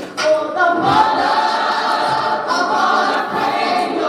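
Choir singing, several voices holding long notes.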